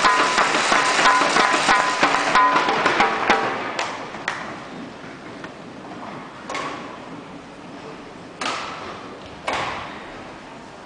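Music plays and fades out over the first few seconds. Then come sharp, echoing badminton racket strikes on a shuttlecock during a rally: a few single hits, the later ones about two seconds and then one second apart.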